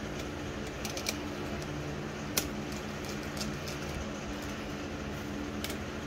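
Screwdriver working the screw terminals of a pool pump motor's wiring: a few short metallic clicks, the loudest about two and a half seconds in, over a steady low hum.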